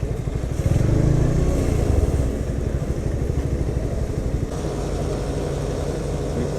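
Motorcycle engine running, the KTM 250 Duke's single-cylinder: it grows louder and rises then falls in pitch around a second in, then settles to a steady note from about four and a half seconds in.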